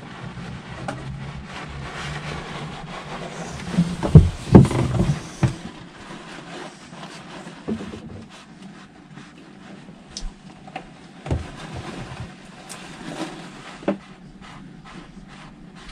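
Hands working at the oil filter of a stopped marine diesel engine, making irregular knocks and clicks, with a loud cluster of knocks about four seconds in.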